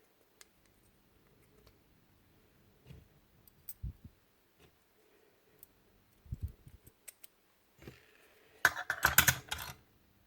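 Scattered clicks and light knocks of small hard parts being handled during a nail gun strip-down, ending in a louder burst of rapid clicking and rattling about a second before the end.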